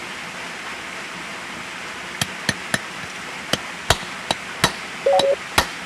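About eight sharp hammer blows at an uneven pace, starting about two seconds in, with a brief metallic ring among them. They drive a rod against wet newspaper packed behind a blind bearing in a gearbox, a trick that uses the pressure of the paper to push the bearing out.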